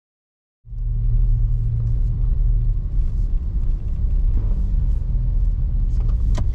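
Steady low engine and road rumble of a Daihatsu Mira Cocoa kei car, heard from inside the cabin while driving. It cuts in suddenly about half a second in, and there is a sharp click near the end.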